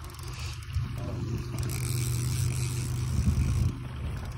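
Small outboard motor running steadily at trolling speed with a low, even hum; it grows louder about a second in and drops back near the end.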